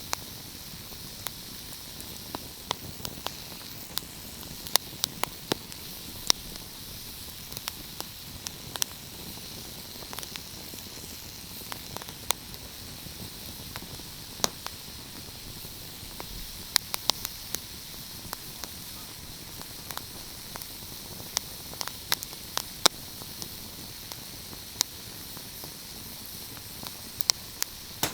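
Wood fire crackling: a steady soft hiss with frequent sharp pops and snaps at irregular intervals.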